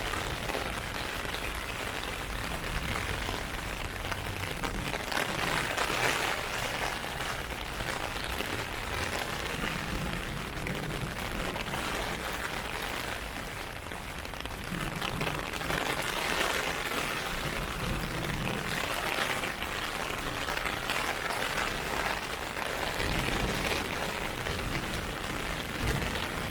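Heavy rain falling on an umbrella, a dense steady hiss that grows louder and eases off several times.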